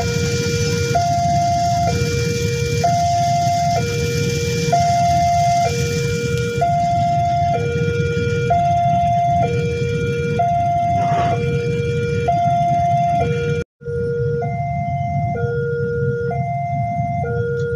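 Railway level-crossing warning alarm sounding, an electronic signal that alternates steadily between a lower and a higher tone, each held about a second, over a low rumble. The alarm cuts out for an instant about three-quarters of the way through, then carries on.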